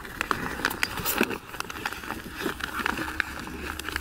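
Sheet of paper rustling and crinkling as it is folded by hand around a bundle of apple scion cuttings, with many irregular sharp crackles.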